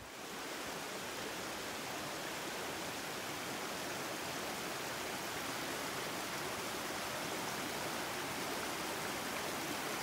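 A small, fast stream rushing over rocks in short cascades down a steep gully: a steady, even rush of water.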